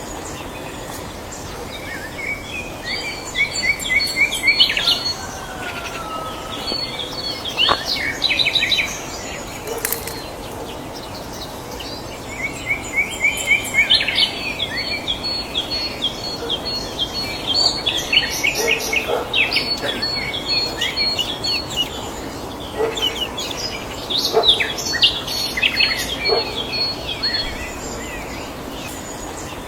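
Small songbirds chirping and singing in bursts of rapid, repeated high notes and trills, over steady background noise.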